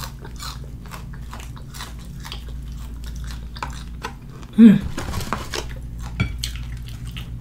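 Close-miked eating of crispy fried chicken by hand: a run of small crunches and wet chewing sounds, with one louder moment about four and a half seconds in, over a steady low hum.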